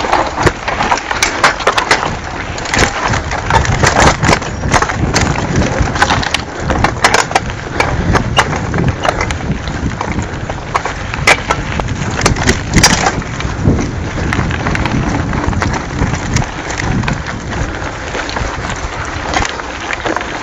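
Mountain bike riding fast down a rough rocky dirt trail: tyres crunching over stones and gravel, with a steady stream of sharp rattles and knocks from the jolting bike, over a low rumble of wind on the microphone.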